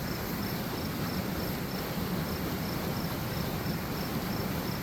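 Water rushing over a small creek dam, running full after heavy rain, a steady even rush. A chirping insect repeats faintly above it several times a second.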